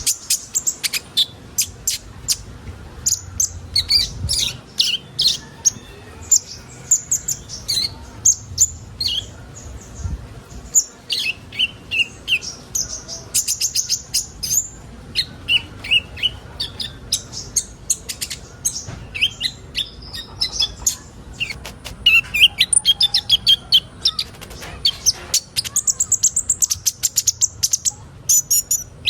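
Kolibri ninja sunbird song: rapid runs of sharp, high chirps and trills, broken by short pauses and starting again.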